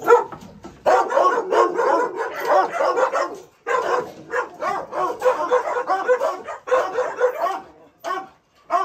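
Pit bull-type dogs barking rapidly and almost without pause, with a brief break about three and a half seconds in and a few single barks near the end.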